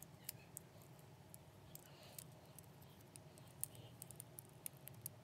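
Faint, irregular small clicks and ticks of clear plastic 3D crystal puzzle pieces being handled and pressed together, over a low steady hum.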